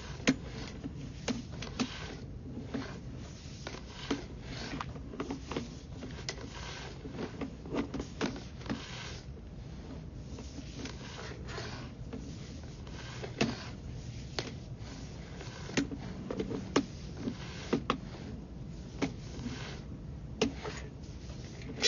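Irregular clicks, knocks and scrapes over a steady low hum: a sewer inspection camera head and its push rod knocking and rubbing along the inside of a drain pipe as it is fed down the line.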